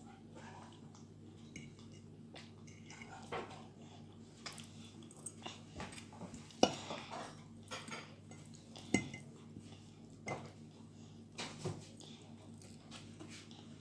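A toddler drinking water from a plastic bottle: scattered small clicks and knocks of the bottle and mouth, two sharper ones standing out about six and a half and nine seconds in, over a faint steady hum.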